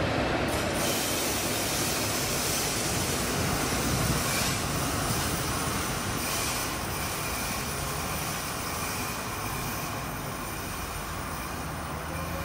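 Freight train rolling on the rails with steady wheel and running noise. A thin, high wheel squeal comes in about halfway through and again near the end, typical of wheels grinding through the curves of a rail yard.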